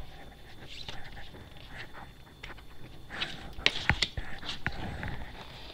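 A deck of cards being shuffled and handled: a loose string of soft card snaps and slides, busier in the second half.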